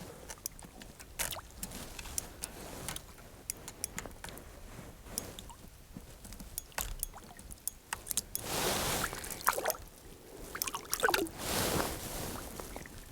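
Water sloshing and splashing in an ice-fishing hole as a hooked trout is played and lifted out, amid scattered clicks and rustling, with two louder splashy surges near the end.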